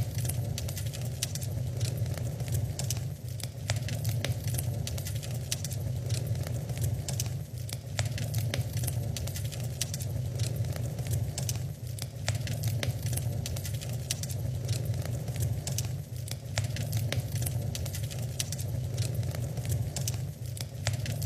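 Wood fire crackling in a fireplace, with frequent sharp pops and snaps over a steady low rumble.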